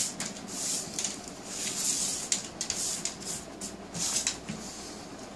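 Toy packaging being rustled and handled: a series of short rustles and small clicks.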